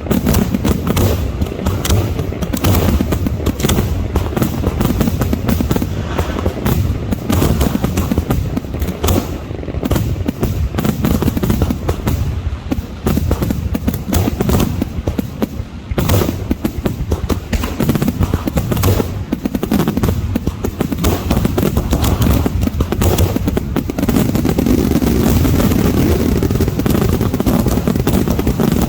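Dense fireworks barrage: aerial shells bursting in rapid succession, their booms overlapping into a continuous rumble with no pause.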